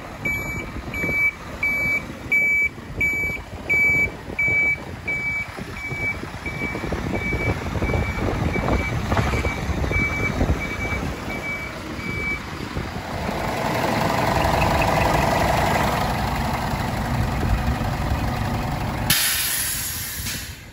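Scania R124 hook-lift truck's diesel engine running while its reversing alarm beeps about twice a second, fading out about halfway through. A short burst of hiss follows near the end.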